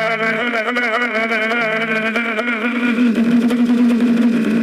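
Electronic drone from a mock emergency alert broadcast: a steady low hum with wavering, warbling higher tones over it.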